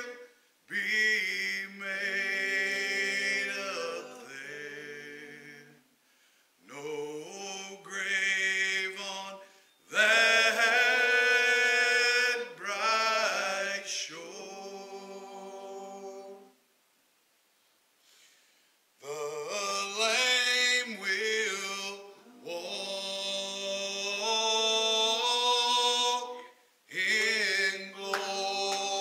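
A small group of voices singing a slow gospel hymn a cappella, no instruments, in long held notes. The phrases are separated by short breaks, with a longer pause about two-thirds of the way through.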